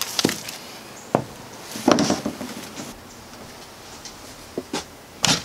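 A few scattered knocks and scrapes from handling a sheet of quarter-inch plywood, with a longer scraping clatter about two seconds in and a sharp knock near the end.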